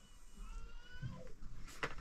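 A farm animal's call: one cry rising in pitch, a bit under a second long, with a sharp click near the end.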